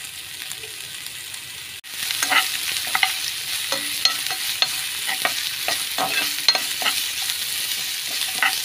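Chopped onion frying in a little hot oil in a pan, sizzling steadily, while a spatula stirs it with repeated scrapes and taps against the pan. The sizzle breaks off briefly about two seconds in, then comes back louder.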